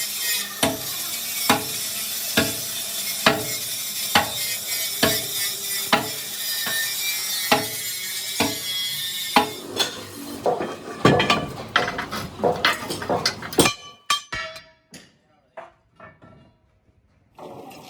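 Hammer strikes on steel, about one blow a second over a steady hiss, then quicker irregular blows about two-thirds of the way through, thinning to a few light taps near the end.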